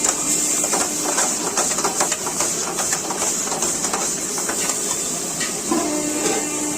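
Rapid, irregular clanking of metal cooking utensils against a pan at a street food stall, over a steady hiss. The clanking stops about five and a half seconds in, and a steady low hum continues.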